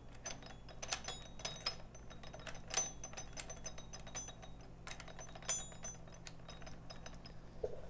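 Light metallic clicks and ticks from a Honda CB750 gearbox's shift drum being turned with a screwdriver, its spring-loaded detent wheel riding up over the drum's pins and dropping back between them into each gear position. The clicks come irregularly, a few a second, some with a brief metallic ring.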